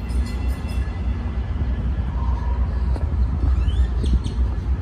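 Wind buffeting the microphone of a handheld camera, a steady low rumble that gusts unevenly, with a faint short rising chirp a little past the middle.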